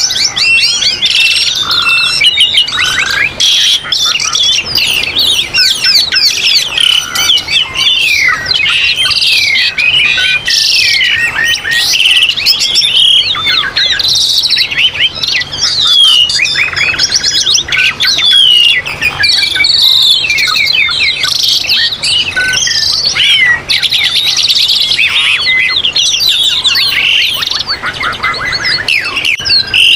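Songbirds singing: a dense, unbroken stream of quick chirps, whistles and trills, several calls overlapping.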